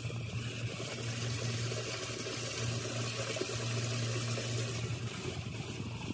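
Muddy floodwater rushing and splashing as it pours through a cleared storm drain into a concrete drain box, with a steady low hum underneath.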